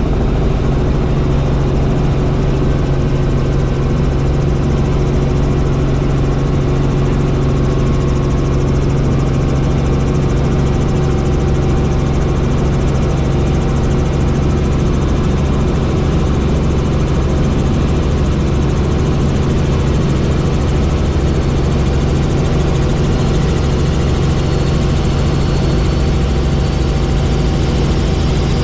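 Helicopter engine and rotor noise heard inside the cabin in flight: a loud, steady drone with a strong low hum. A faint high whine creeps up in pitch over the last few seconds.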